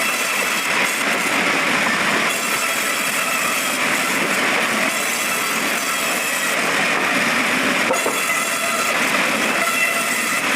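Wood-cutting bandsaw machine running, a steady loud rush of noise with a thin high whine over it.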